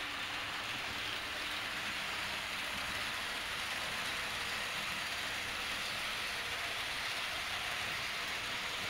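Model train with a BLS electric locomotive and passenger coaches running on a layout's track: a steady rolling hiss that does not change.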